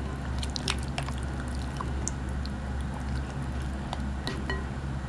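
Wet squishing and small sharp clicks of hands rubbing olive oil into raw rabbit legs in a glass bowl, over a steady low hum.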